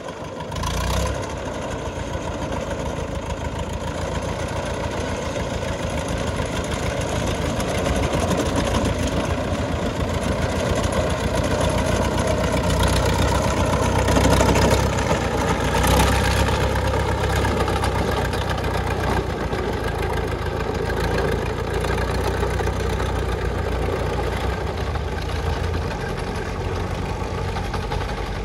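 International B-275 tractor's diesel engine running steadily under load, with a short surge about a second in and louder stretches around the middle as the engine note dips and rises.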